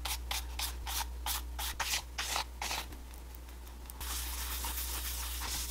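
A bristle brush swept quickly back and forth over a leather wallet, about four or five strokes a second, then from about four seconds in a cloth rubbing the leather in a steady hiss.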